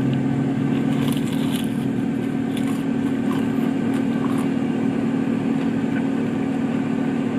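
Steady low hum of an idling car engine, with a few faint clicks and crackles of food and packaging being handled in the first half.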